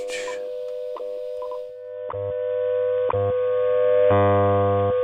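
WWV time-signal broadcast on 15 MHz received in AM on an Icom transceiver: a steady audio tone broken by a short tick once a second. About two seconds in the hiss drops away and the low hum of the time-code subcarrier comes in under the tone.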